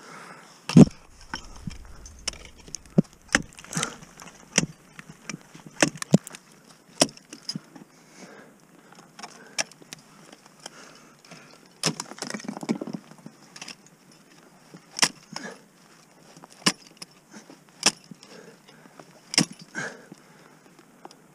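Ice axe picks and crampon front-points striking steep water ice during a lead climb: a string of sharp, irregular strikes, the loudest about a second in, with a longer crunching stretch just past halfway.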